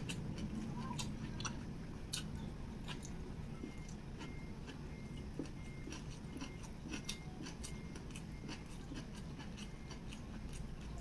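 Close-miked chewing of sticky rice and shredded beef serundeng, with small wet mouth clicks and smacks scattered irregularly over a low steady hum.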